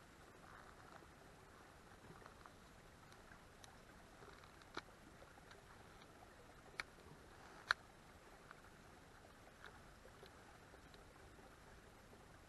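Near silence: a faint hiss with scattered soft ticks and three sharp clicks, the last and loudest about two thirds of the way in.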